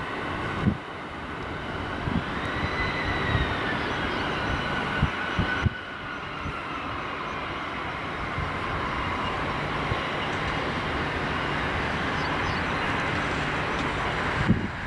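Fairchild A-10 Thunderbolt II's twin General Electric TF34 turbofans whining as the jets taxi past, over a steady jet rush. The whine rises and then falls in pitch, and after a cut about six seconds in another whine falls slowly. There are low thumps of wind on the microphone.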